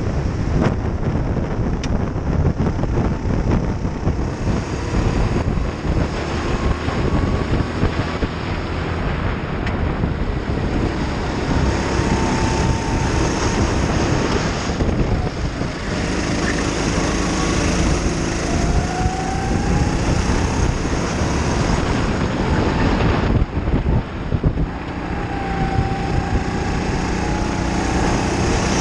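Racing go-kart engine heard from the kart itself, running hard under heavy wind buffeting on the microphone. The engine note rises and falls with the revs through the corners.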